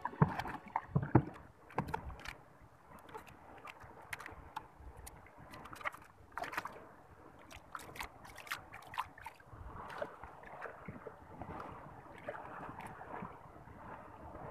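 Small outrigger canoe being paddled: the paddle splashes and swishes through the water, with irregular sharp knocks and clicks. The loudest few knocks come in the first two seconds.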